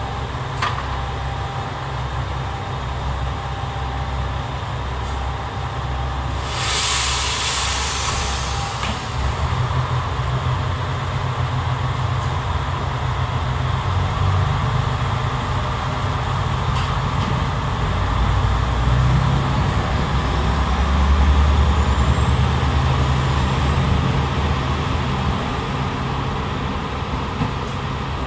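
Diesel train pulling away from the station, its engine running with a steady low rumble. There is a burst of air hiss about seven seconds in, and the engine note grows louder around twenty seconds in as it accelerates away.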